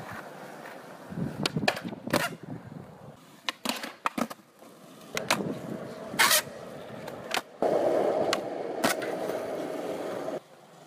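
Skateboard at a concrete skatepark: sharp clacks of the board popping and landing on ledge tricks, about eight times, over wheels rolling on concrete. About three-quarters of the way in, a louder steady rolling begins and then cuts off suddenly just before the end.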